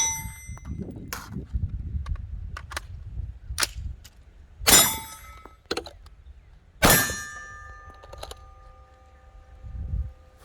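Gunshots: three loud shots, each followed by the metallic ring of a struck steel target, the last ring holding on for a second or more. Fainter shots sound in between.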